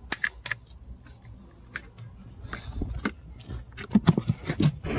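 Scattered light clicks, taps and rattles of hands working screws and plastic trim into a car's blower motor housing under the dashboard. They are sparse at first and get busier and louder near the end.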